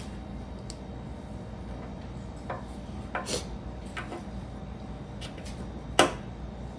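Plastic LEGO pieces clicking and tapping as they are handled and pressed together: a few scattered clicks, the sharpest about six seconds in, over a steady low hum.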